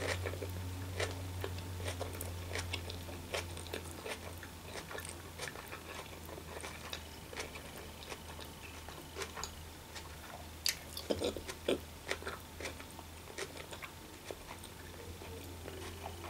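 A person chewing a mouthful of vegetarian sushi roll with the mouth closed: soft wet clicks and smacks, scattered throughout and thickest about eleven seconds in. A steady low hum runs underneath.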